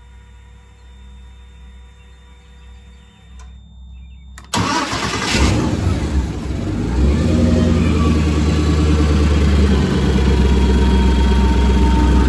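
Inboard marine engine being started by key: a faint steady hum, then about four and a half seconds in the engine cranks and catches abruptly. It runs unevenly for a couple of seconds, then settles into a steady idle.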